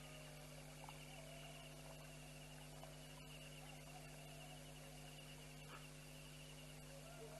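Near silence: faint night ambience with a continuous rapid trill of insects and a steady low electrical hum.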